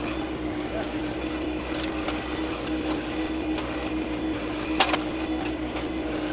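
John Deere 2025R compact tractor's three-cylinder diesel running steadily while its backhoe digs, with a steady whine over the low engine throb. A sharp metal clank about five seconds in.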